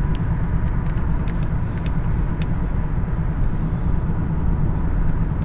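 Steady road and engine rumble of a car cruising along a highway, heard from inside the cabin.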